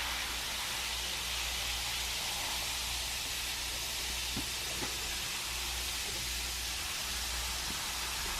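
Effervescent fizzy heart fizzing as it dissolves in water: a steady, even hiss, with a couple of faint ticks about halfway through.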